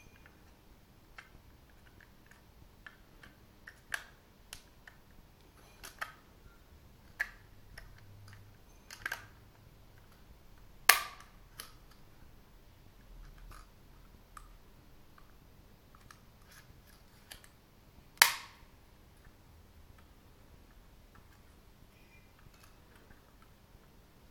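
Scattered plastic clicks and light knocks as the Microsoft Wireless Mobile Mouse 3500's plastic shell is pressed together and handled, with two sharp plastic snaps, one about halfway through and one later, like the cover's clips snapping into place.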